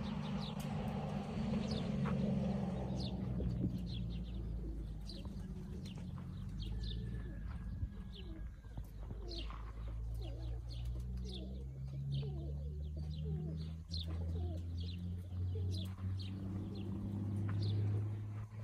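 Pigeons cooing low and steadily, with many short, high chirps from small birds scattered throughout.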